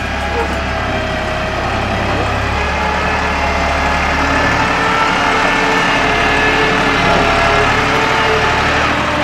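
Massey Ferguson 260 tractor's three-cylinder diesel engine running steadily under load while moving a trolley loaded with bricks.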